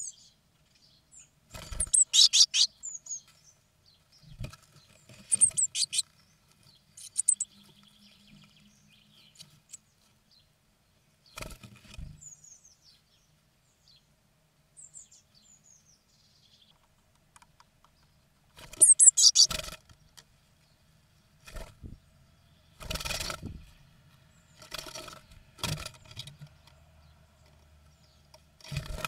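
Blue tits calling inside a wooden nest box: several bursts of high, quick chirps. Between the bursts come knocks and fluttering scuffs of wings and feet against the wooden box, the loudest about three quarters of the way through.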